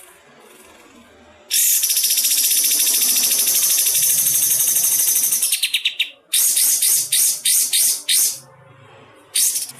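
A songbird's rapid-fire, very high trill lasting about four seconds, slowing and breaking into separate notes, then a string of short quick bursts and one more near the end.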